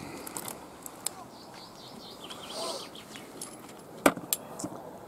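Scattered light clicks over a quiet outdoor background, with two sharp knocks close together about four seconds in.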